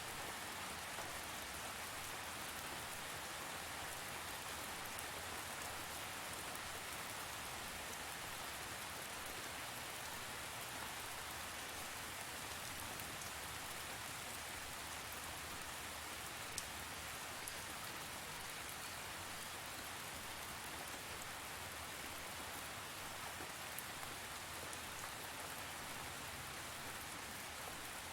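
Steady rain falling on a surface, an even hiss with a few scattered drop ticks.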